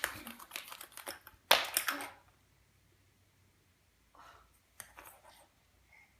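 A quick, dense run of clicks and rattles from small hard objects being handled, loudest about one and a half seconds in. After that come a few fainter clicks.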